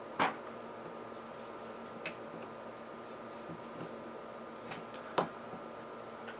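Three sharp clicks and a few lighter ticks from fingers handling small parts and wires on a mini-quad frame, about a second or two apart, over a steady background hiss and hum.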